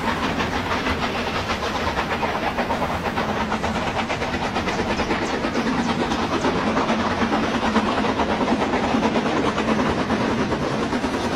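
Two steam locomotives, a DR class 41 and a class 52, running side by side, their exhaust beats chuffing rapidly and overlapping into a continuous churn, with steam hissing.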